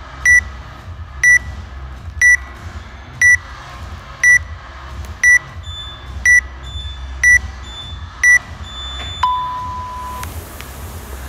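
Workout countdown timer beeping once a second, nine short high beeps, then one longer, lower tone about nine seconds in that signals the start. Near the end the whooshing of an air rowing machine's fan flywheel begins as the first strokes are pulled.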